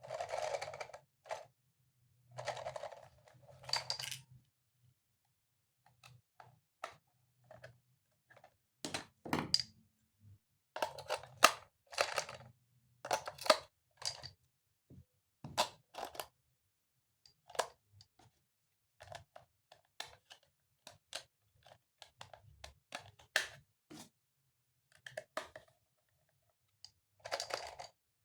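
Irregular clicks, taps and short rustles of hard plastic toy pieces being handled, with a quick run of sharper clicks around the middle.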